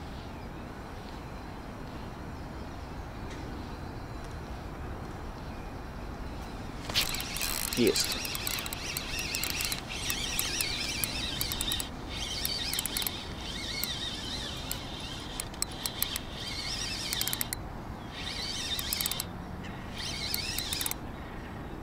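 A spinning reel is cranked in spurts to bring in a hooked pike on a bent rod. Its gears whir and rattle from about seven seconds in, with brief pauses between turns.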